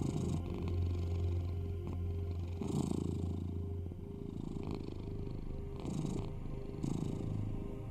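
Domestic cat purring close up: a continuous low rumble that swells and eases with each breath every second or two.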